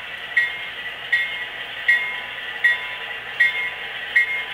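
HO-scale model train running on the layout: a steady hiss with a short, ringing metallic strike that repeats evenly, about four every three seconds.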